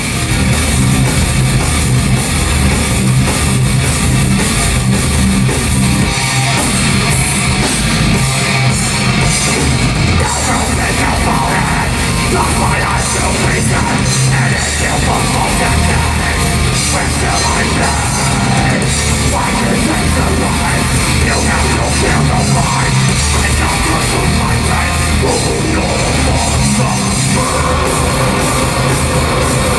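Thrash/death metal band playing live: distorted electric guitars and a drum kit, loud and continuous.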